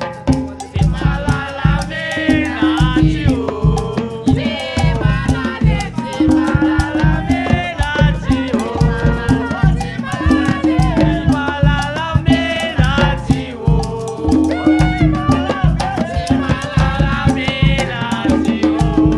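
Upbeat dance music with a steady beat, a repeating bass line and percussion.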